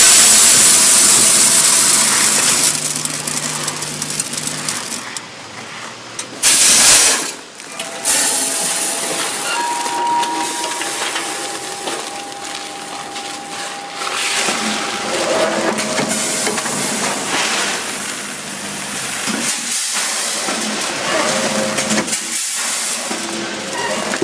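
Automatic macaroni packing machine with a weigher running, with a steady mechanical noise and loud hissing, strongest at the start and in a short burst about seven seconds in.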